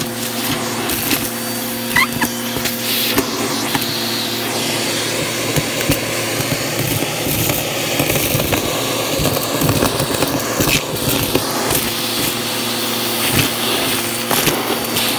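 Vacuum cleaner running with a crevice tool, its motor a steady hum. Over it is a constant crunchy crackle and rattle of grit and small debris being sucked up the nozzle.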